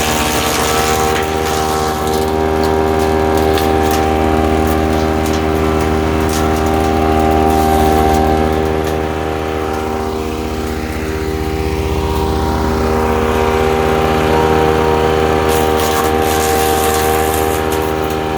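Ducar wood chipper's small gasoline engine running steadily at speed, with short bursts of noisy crunching near the start and again near the end as branches go through.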